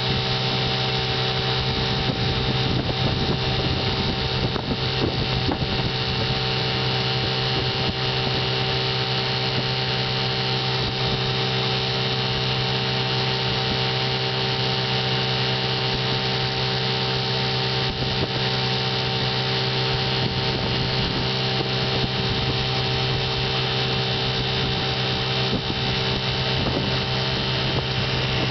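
1958 Johnson 5.5 hp two-cylinder two-stroke outboard motor running steadily at an unchanging speed, exceptionally quiet, freshly tuned with new coils, adjusted points and a carb kit.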